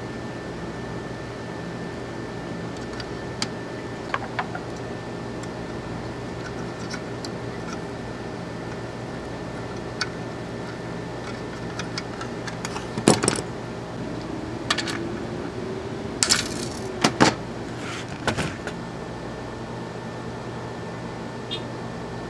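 A steady hum with a handful of sharp metallic clicks and clinks from small hand tools working on a metal amplifier chassis. The clicks are sparse at first and bunch together in the second half.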